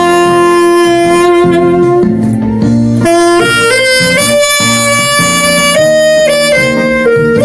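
Alto saxophone playing a slow song melody in long sustained notes with a natural, unprocessed tone. The first note is held for about two seconds, then the line steps through a few more held notes.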